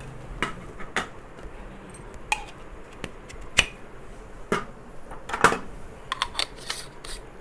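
Scattered light clicks and knocks of metal hand coffee grinder parts being handled and set down, the loudest about five and a half seconds in. Near the end comes a quick run of small clicks as the red aluminium catch cup of a Timemore Chestnut C2 hand grinder is unscrewed from its body.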